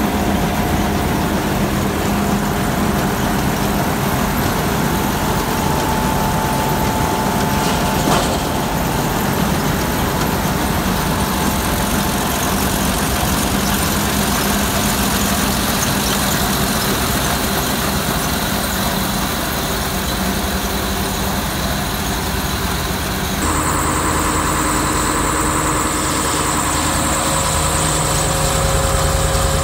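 Claas Lexion 760 combine harvester running while stationary: its diesel engine and belt-driven drives turning with a loud, steady mechanical noise. The sound shifts sharply about 23 seconds in, with new steady tones, as the engine bay is neared.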